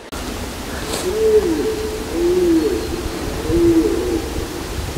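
A bird giving several low hooting or cooing notes, some gliding up or down, between about one and four seconds in. Steady wind noise on the microphone runs underneath.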